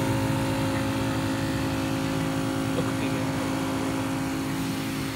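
The battery-powered electric pump of a Plamate 20L backpack sprayer running with a steady hum, pressurising the line for spraying.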